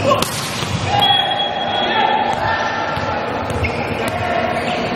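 A volleyball struck hard once near the start, a sharp smack that echoes around the gym. Players shout after the rally.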